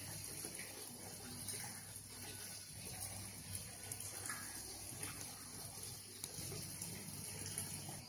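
Steady sound of running water.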